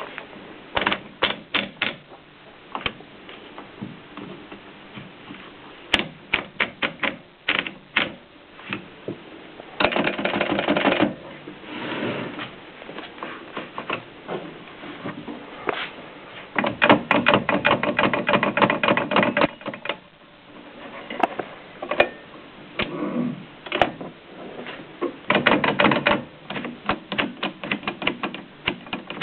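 1925 Mignon index typewriter typing: irregular runs of sharp clicks, with a few denser stretches of rapid clicking.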